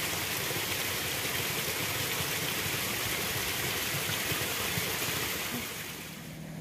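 Steady rushing of a small forest stream, fading near the end.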